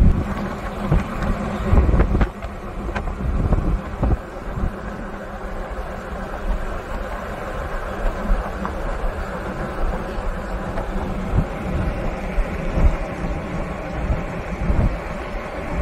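Steady road and wind noise of a moving car, heard from inside, with a low rumble and occasional small bumps.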